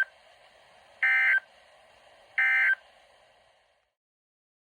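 NOAA Weather Radio end-of-message signal through a Midland WR120 weather radio: the end of one short, shrill burst of data tones, then two more, about a second and a half apart, marking the end of the EAS alert. The faint radio hiss underneath cuts off abruptly near the end.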